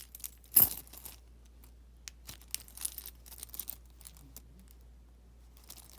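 Handling noises: a sharp rustle about half a second in, then scattered light clicks and crinkles.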